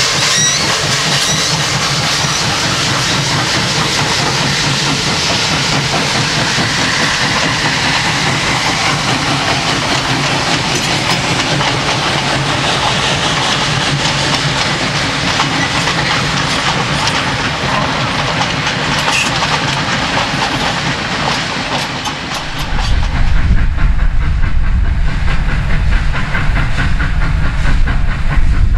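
Two Victorian Railways steam locomotives, K190 and J515, pass close by, hissing steam, followed by passenger carriages whose wheels clickety-clack over the rail joints. About 23 seconds in the sound changes abruptly to a deep, steady rumble as a steam train works towards the listener from a distance.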